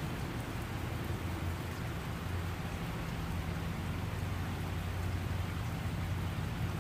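Heavy rain falling steadily and pattering on the ground and plants, over a steady low rumble.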